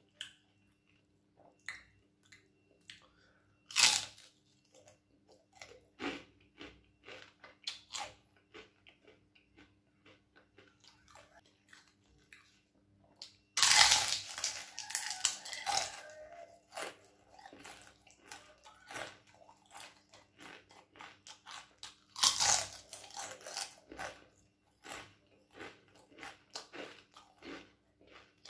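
A person biting into and chewing crispy fried wontons. A sharp crunch comes about four seconds in, longer runs of crunching come around the middle and again about three-quarters through, and quieter chewing clicks fill the gaps between.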